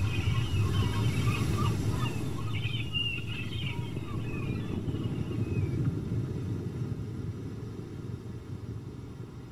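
A steady low rumble, like wind or surf, with birds calling over it for the first six seconds or so; the whole sound slowly fades out.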